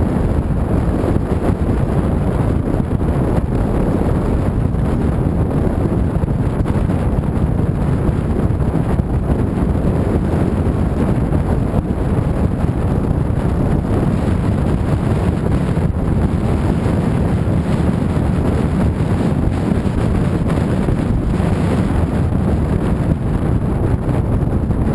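Steady wind rush buffeting the microphone of a camera riding on a moving motorcycle, with the motorcycle's running and road noise mixed underneath.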